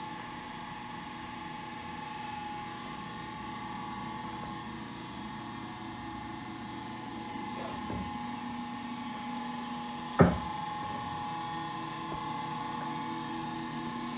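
SCMI T130 Class spindle shaper with VFD spindle speed control running steadily: a steady hum with a high whine. A single sharp knock about ten seconds in.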